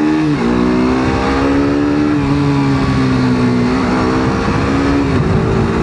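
Single-cylinder KTM RC motorcycle engine running under way, its note holding steady and dropping in pitch twice, briefly about half a second in and again near the end, as the throttle is eased or a gear is changed.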